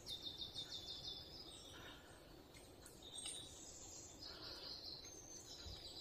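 Faint bird calls in forest: a quick trill of about ten high chirps in the first second, then a few more high chirps later, over a faint background hiss.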